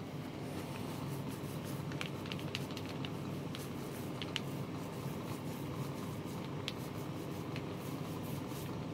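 Small foam paint roller being rolled over a frame with wet black paint, a soft, steady squishing with a few faint ticks.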